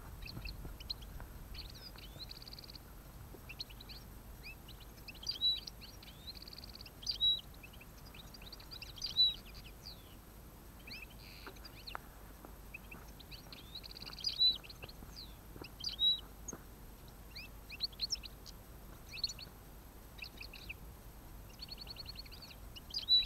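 European goldfinches singing and calling: a continuous high, fast twittering with buzzy trills, and several louder notes standing out now and then.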